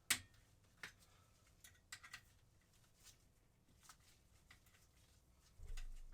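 Faint, scattered sharp clicks and light taps of hand work on a motorcycle's clutch cable as it is being disconnected, with a dull low thump near the end.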